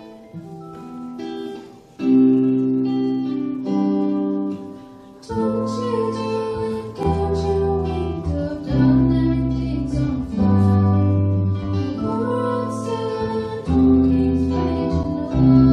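Live band music: acoustic guitar strumming under a young woman's singing. About five seconds in the band fills out, with drum strikes and strong low bass notes joining.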